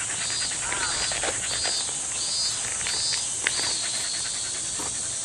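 Shiba Inu panting close up, set against a steady high insect drone and a short chirping call that repeats about every half second.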